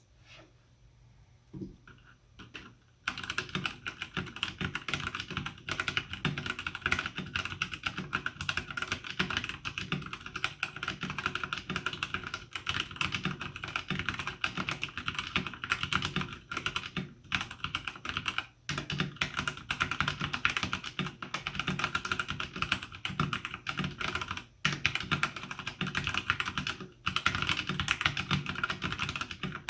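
Typing on an E-Element Z-88 mechanical keyboard with Gateron Brown switches, PBT double-shot keycaps and rubber O-rings under the keycaps to damp bottoming out. A few single keystrokes at first, then fast continuous typing from about three seconds in, with two brief pauses.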